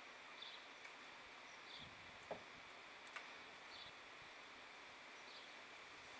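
Near silence: faint outdoor hiss with soft high chirps every second or so and a few faint clicks.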